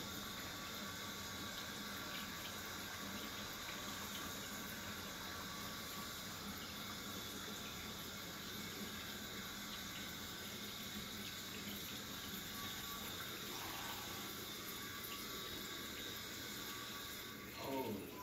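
Steady running and trickling of water circulating through a reef aquarium and its sump system. About a second before the end, a brief tone glides quickly down in pitch.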